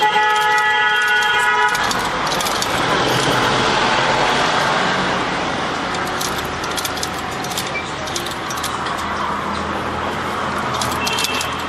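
A vehicle horn sounds one held note for about the first two seconds over steady street traffic noise. After it come scattered runs of light clicking from the cobbler's hand-cranked shoe-patcher sewing machine as it stitches.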